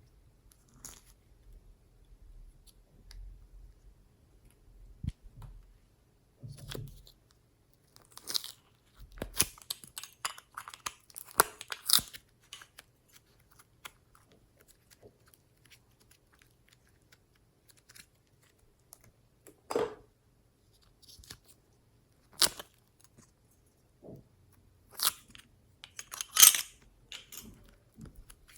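Glossy slime being squeezed and stretched by hand, giving off sticky crackles and pops in scattered clusters with quieter pauses between them.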